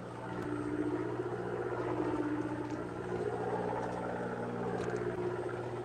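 A fishing boat's motor running steadily with a low hum, and a higher tone above it that wavers up and down.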